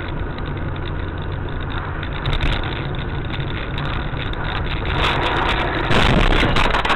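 Car engine and road noise, steady, growing louder and rougher from about five seconds in.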